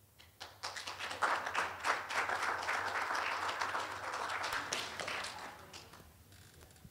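Small audience applauding: the clapping starts about half a second in, builds quickly, holds for a few seconds and dies away near the end.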